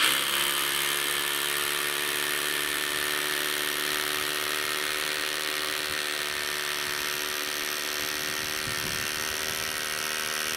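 Ryobi 18V ONE+ cordless drill in hammer mode, run at a steady speed while drilling into rock, its motor whine mixed with the rattle of the hammer action.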